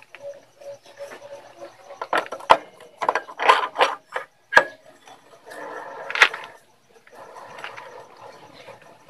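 Metal parts clicking, knocking and scraping as a GY6 125 scooter's rear clutch and driven pulley assembly is handled and slid onto its shaft. There are sharp knocks about two and a half and four and a half seconds in, with rattling and rubbing between them.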